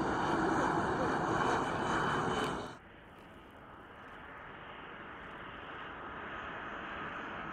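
Leonardo M-346FA's twin jet engines running loud as it taxis, a steady whine over the jet noise. About three seconds in this cuts to the fainter roar of a Boeing 737 jet on approach with its gear down, growing steadily louder.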